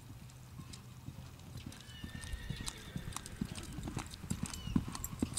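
Two-year-old reining horse loping on soft dirt arena footing: dull, repeated hoofbeats that grow louder from about two seconds in.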